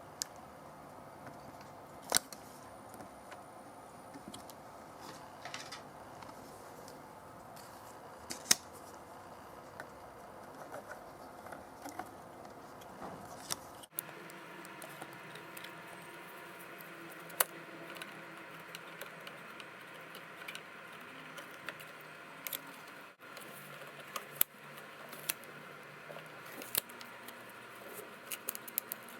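Scattered sharp clicks and small taps from handling iMac memory modules and the memory compartment, over a steady background hum.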